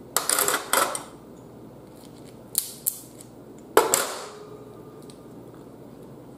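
Blue crab shell being cracked and picked apart by hand: crunching crackles early on, two short clicks, then a sharp knock on a dish about four seconds in that rings briefly.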